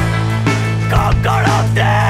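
Screamo/hardcore rock music: a steady low bass note held under melodic lines that bend and waver in pitch.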